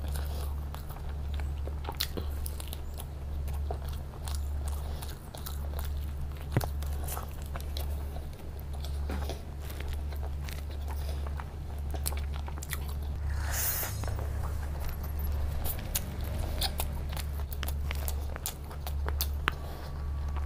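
Close-miked chewing and biting of a person eating fried chicken and noodles by hand, with many small wet clicks and smacks of the mouth. A steady low hum runs underneath.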